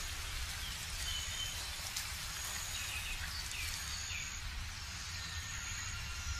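Subtropical forest ambience: a steady high hiss with a thin, high tone that comes and goes, and a few short falling bird chirps between about one and three and a half seconds in, over a low rumble.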